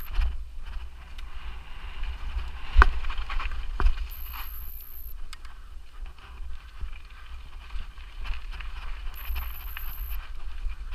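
Mountain bike being ridden over a rough forest trail: the frame and parts rattle and knock over roots and rocks, with wind rumbling on the camera microphone. Two sharp knocks come about three and four seconds in.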